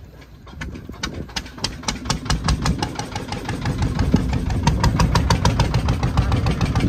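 Boat engine running with a steady knocking beat of about five to six knocks a second. It comes in faint and grows louder over the first few seconds, then holds steady.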